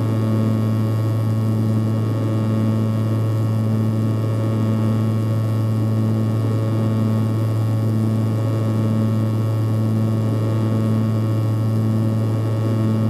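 Cabin drone of an Antonov An-140's twin turboprop engines and propellers in flight. It is a loud, steady low hum with a higher tone that swells and fades about once a second, the beat of the two propellers turning at slightly different speeds.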